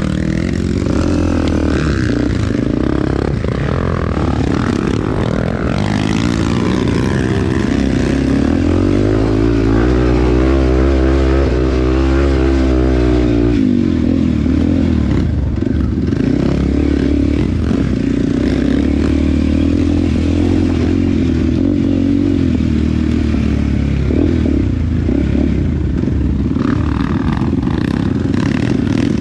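Kawasaki KLX dirt bike's single-cylinder four-stroke engine running in low gear on a rough forest trail, heard from the rider's seat. Its pitch wavers up and down with the throttle, and a clearer, steadier engine note drops away suddenly about halfway through.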